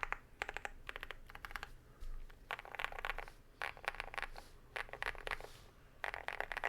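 Modded HI75 mechanical keyboard with lubed Vertex V1 switches and ABS Cherry-profile keycaps, typed on in quick runs of keystrokes. The runs come about every second, with short pauses between them.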